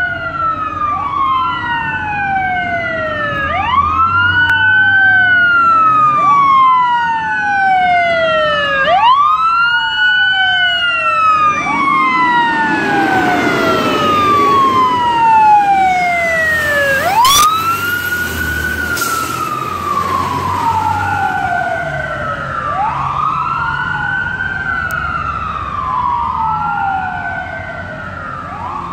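Sirens of a fire engine and a ladder truck wailing together out of step, each rising quickly and falling slowly about every four seconds, with the trucks' engines rumbling as they pass by near the middle. About two-thirds of the way through, the ladder truck's siren is so loud and direct that the recording gives a brief audio burp.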